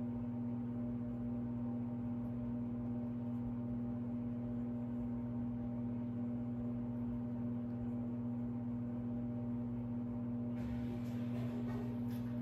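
Steady electrical hum with a low, even drone. From about ten seconds in, there is faint light rustling and clicking of small wooden pieces being handled.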